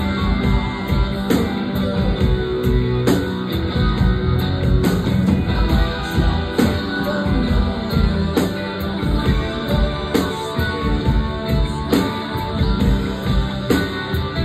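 Live rock band playing an instrumental passage without vocals: electric guitar over drums keeping a steady beat.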